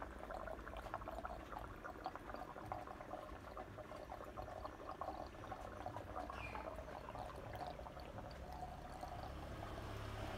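DIY protein skimmer running: water and air bubbles churning in its chamber, a steady bubbling, trickling pour of water.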